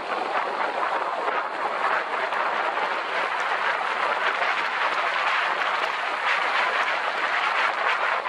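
Honda motor scooter riding along a rain-soaked road: a steady rushing hiss of tyres on the wet surface mixed with wind on the microphone.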